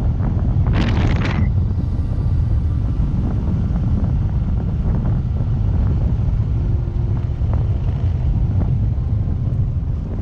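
Wind buffeting the microphone of a camera mounted on a moving motorcycle, over a steady low rumble from the ride. About a second in there is a brief louder hiss.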